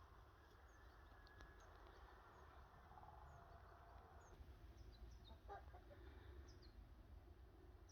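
Faint outdoor ambience: distant chickens clucking and small birds giving short high chirps, over a low rumble.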